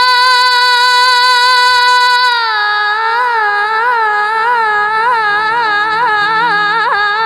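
A woman singing a devotional bhajan solo, holding one long vowel. The note is held steady for about two seconds, then dips a little and wavers through rapid ornaments.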